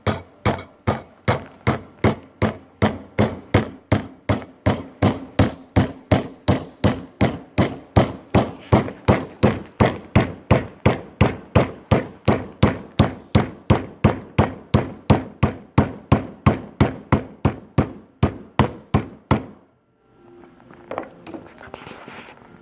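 Steady hammer blows, about three a second, bending a steel strip over a maple block clamped in a jig to form an aircraft engine mount fitting. The blows stop shortly before the end.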